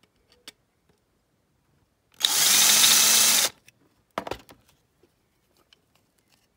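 Small power drill run in one short burst of just over a second, drilling out the clips that hold the window glass in a die-cast toy car body. A few faint clicks of handling follow.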